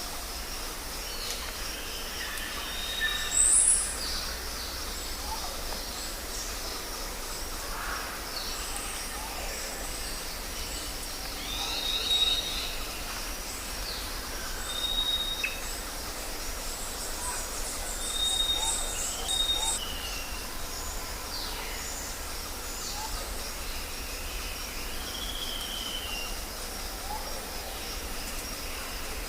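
Jungle ambience: many birds calling in short whistles, chirps and gliding notes over a steady hiss, with a louder high call about three seconds in and a rapid high trill near the middle.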